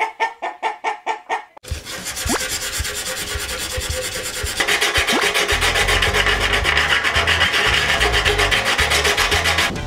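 Hand sanding of a paint run on a freshly clear-coated metal motorcycle fuel tank, a steady fast rubbing of sandpaper. From about five seconds in it gives way to louder, harsher rasping strokes as a sharpening stone grinds down the bumpy fuel-cock mounting face.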